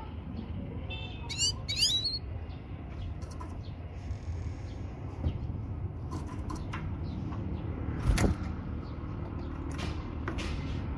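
A few quick, high European goldfinch chirps about a second and a half in, which the uploader presents as a female's call for bringing a male into breeding mood. A steady low rumble lies under it, with scattered clicks and a sharp thump about eight seconds in.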